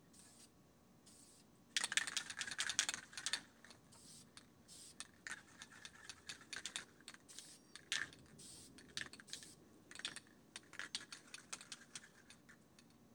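Aerosol spray paint can being shaken, its mixing ball rattling: a fast run of rattles about two seconds in, then shorter bouts of rattling on and off.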